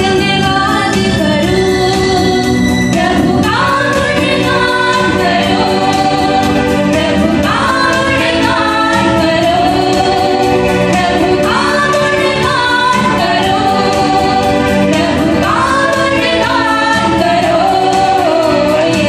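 Two women singing a worship song together into microphones, accompanied by a Yamaha electronic keyboard. Each sung phrase opens with an upward swoop, about every four seconds.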